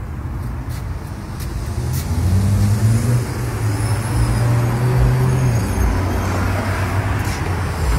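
A motor vehicle engine running over steady traffic rumble. Its low hum rises about two seconds in, holds, and drops away after about five and a half seconds.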